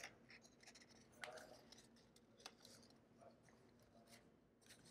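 Near silence, with faint scattered rustles and small clicks of card stock being handled as paper tabs are folded and pushed into their slots.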